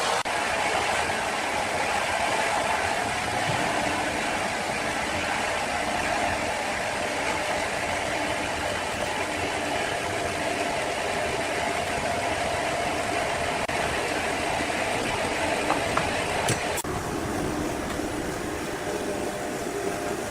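Sawmill saw running through a log, a steady mechanical noise with a faint whine held throughout. The sound changes abruptly about three-quarters of the way through.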